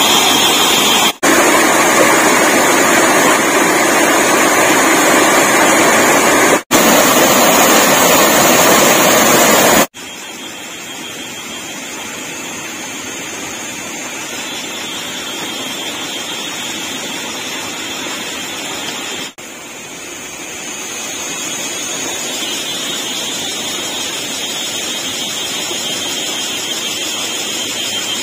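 Small forest waterfall: a loud, steady rush of cascading water. About ten seconds in it drops away abruptly to a much quieter steady background with a thin high drone.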